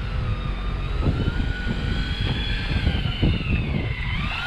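Electric deep-drop fishing reel's motor whining as it winches line up from a deep drop, its pitch wavering with the load and dipping then climbing again near the end, over a low rumbling noise.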